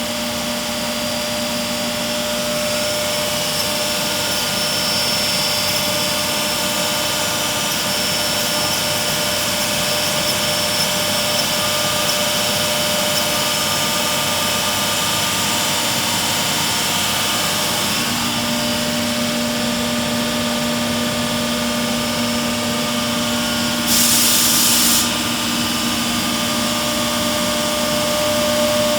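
Weeke BHP200 flat-table CNC machining center running with a steady hum and whine. A short hiss, like a burst of air, lasts about a second near the end.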